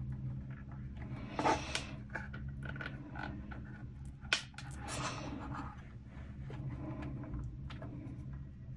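Small clicks and scrapes of plastic model-kit parts and tools being handled and pressed into place, with one sharp click about four seconds in, over a steady low hum.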